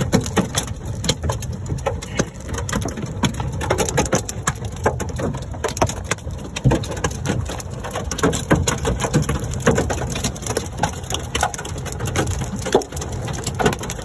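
Large hailstones, with rain, pelting the roof, windshield and body of a Ford Mustang, heard from inside the car: a dense, irregular clatter of hard knocks over a steady hiss.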